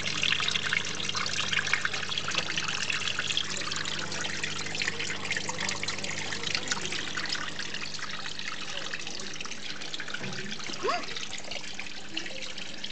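Small terrarium waterfall trickling and splashing steadily over rock, with a steady low hum underneath. A brief rising squeak near the end.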